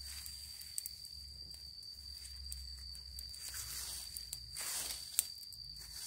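A steady high-pitched insect drone, with dry leaves rustling and twigs crackling as hands work through the leaf litter; the rustling swells near the end, with a sharp snap just after five seconds.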